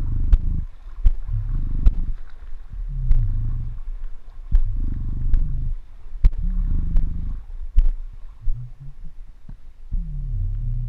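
Wind buffeting the action camera's microphone, heard as surges of low rumbling every second or two, with a scatter of sharp clicks.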